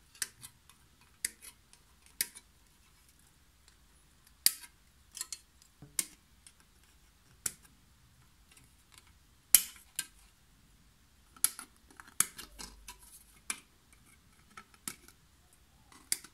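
Side cutters snipping plastic model-kit parts off their sprue: a run of sharp, irregular clicks, roughly one every second or two, some in quick pairs, the loudest about ten seconds in.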